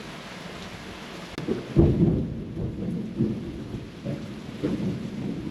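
Heavy tropical rain hissing steadily, then about two seconds in a loud clap of thunder breaks in and rolls on as a deep rumble in uneven swells.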